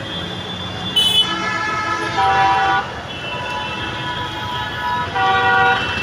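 Vehicle horns honking over road traffic noise. There is a short sharp blast about a second in, a longer one from about two to three seconds, and another near the end.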